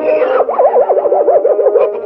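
Cartoon sound effect: a warbling tone that wobbles rapidly up and down, about seven times a second, its swing narrowing as it goes, with a brief falling whistle near the start.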